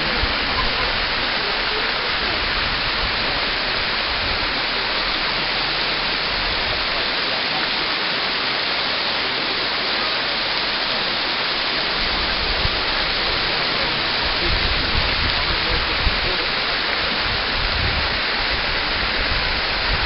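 Bigăr waterfall: water spilling in thin streams over a moss-covered rock face into a pool, a steady, even rushing hiss.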